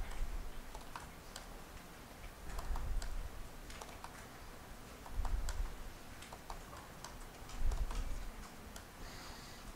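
Typing on a computer keyboard: scattered key clicks in small groups as short words are typed and entered, with a few dull low thumps in between.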